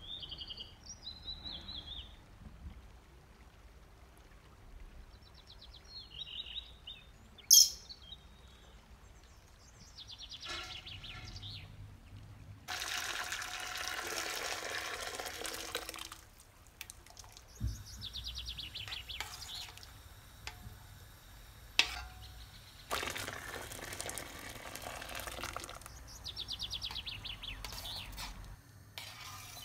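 Boiling water poured from a kettle into a steel pot of wheat, two pours of about three seconds each, with birds chirping on and off in the background. A single sharp clink about seven seconds in.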